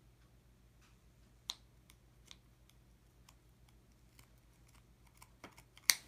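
Scissors snipping through a USB charging cable: scattered light clicks of handling, a sharp click about one and a half seconds in, and one loud, sharp snip just before the end as the cable is cut through.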